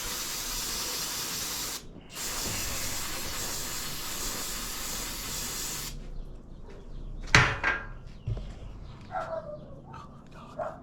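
Spray hissing on jet ski carburetor parts being cleaned. It runs in two long blasts, broken by a short pause about two seconds in, and stops about six seconds in. A single sharp clack follows a little after seven seconds.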